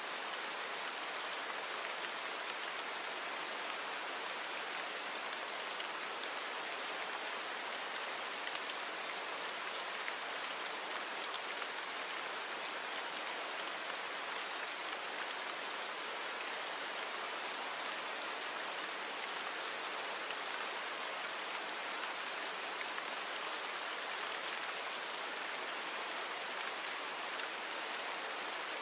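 Steady rain falling, an even hiss of many drops without distinct impacts, thunder or other events.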